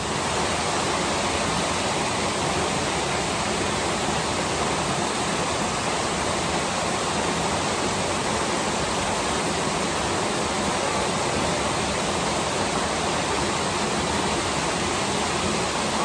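Small waterfall cascading over rock ledges: a steady rush of falling water.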